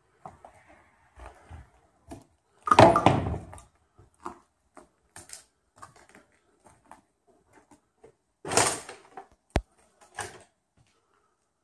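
Footsteps on old wooden floorboards and scattered loose boards and debris: irregular light knocks and scuffs, with two louder, longer clattering scrapes about three seconds in and again near nine seconds, and a sharp click just after the second.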